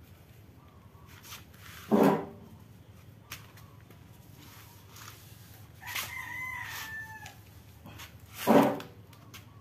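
A rooster crowing, with a held, slightly falling call about six seconds in. Two loud, short sounds come about two seconds in and near the end.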